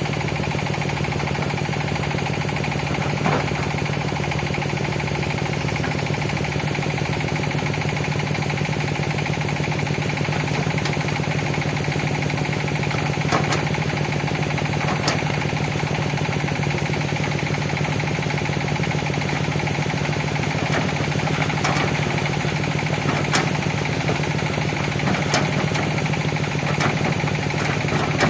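Hitachi ZX200 excavator's diesel engine running steadily, with a deep even hum. A few short, sharp knocks come through now and then.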